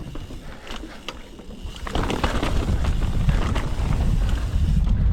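Mountain bike descending a rocky, rooty downhill trail, heard from a camera on the rider: wind rumbling on the microphone, and tyres and frame clattering over rocks in scattered sharp knocks. The noise is lower for the first two seconds or so, then picks up.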